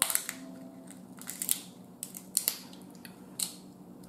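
Snow crab shell cracked and snapped apart by hand, in a series of sharp cracks and crunches: one at the start, a cluster about a second and a half in, two more near two and a half seconds, and a last one near three and a half.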